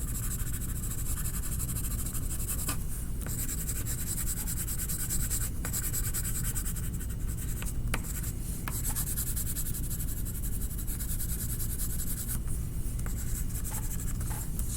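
A coloring tool scribbling rapidly back and forth on paper to fill in a large area, with a few brief pauses in the strokes. A low steady hum underneath.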